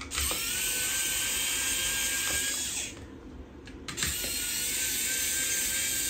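Pen-style electric precision screwdriver running under load as it backs out the screws holding the laptop's 2.5-inch hard drive. It gives a steady high whine for about three seconds, stops for about a second, then starts again.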